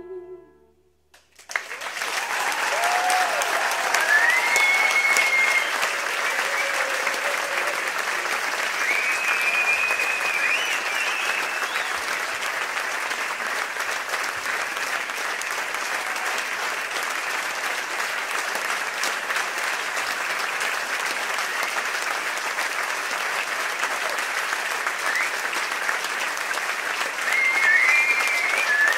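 The music stops, and about a second later a concert audience breaks into steady applause, with a few voices calling out over it.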